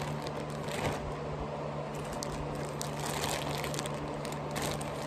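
Plastic mailer bag crinkling and rustling as it is cut and pulled open with scissors, with a few short sharp clicks and snips.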